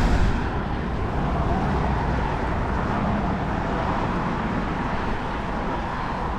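Steady traffic noise from vehicles crossing the highway bridge, with a strong low rumble.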